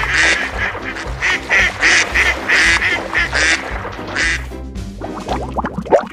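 A rapid series of raspy duck quacks, a cartoon sound effect, over background music; the quacks stop about four seconds in.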